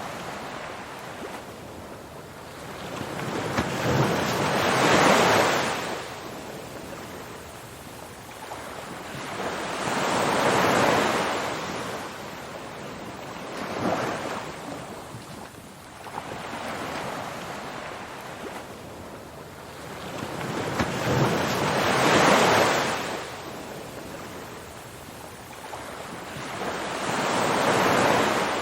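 Ocean surf: waves breaking and washing in, a steady rush that swells and fades every several seconds.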